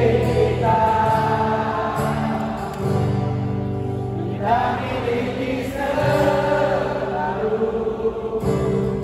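Live concert music: a large crowd singing along in unison with a singer and acoustic guitar.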